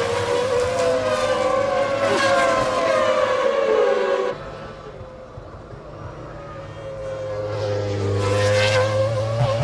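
Formula One race car engines at high revs, their pitch sliding downward as cars pass. The sound drops suddenly about four seconds in, then a high engine note builds again near the end.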